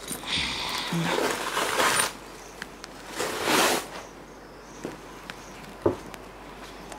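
Rustling and brushing as a mesh screen and curtain rub against the handheld camera, in two main swells, with a few faint clicks and one sharp knock about six seconds in.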